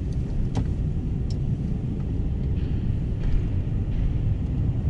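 Steady low rumble inside the cabin of a Toyota Hilux Surf as it drives slowly across a ferry's enclosed car deck, the engine running at low speed.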